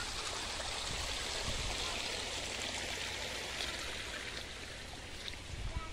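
Steady rushing of flowing water, a stream running by.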